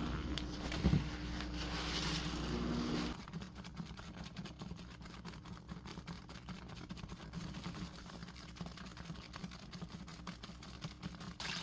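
Washing machine running with a steady hum and a knock about a second in; the hum stops about three seconds in, leaving a faint, dense crackle of dish-soap suds popping.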